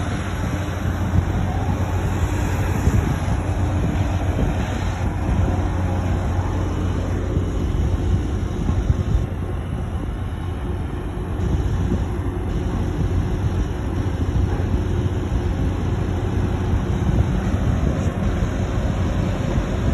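Steady low drone of heavy log-loading machinery: a ship's crane and a tracked excavator running.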